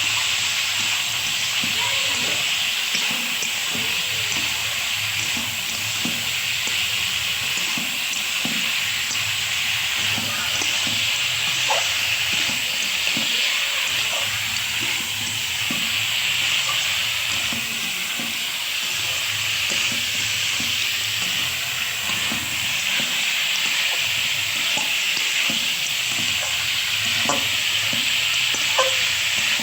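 Mutton cooking in oil and masala, sizzling steadily, with a spoon scraping and ticking against the pot now and then as it is stirred.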